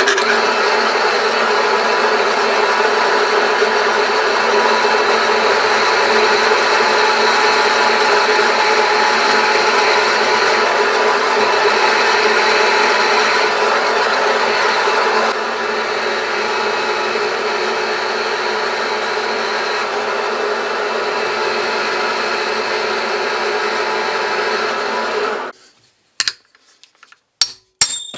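Electric drill running steadily while drilling holes in a metal plate for M6 bolts and pins. It steps slightly quieter a little past halfway and cuts off sharply near the end, followed by a few light clicks.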